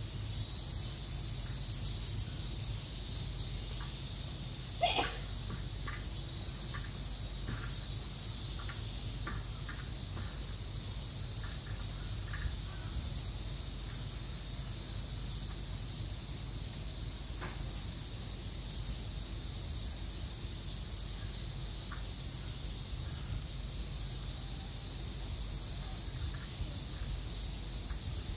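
Steady high-pitched drone of insects over a low background rumble, with one short rising squeak about five seconds in and a few faint ticks after it.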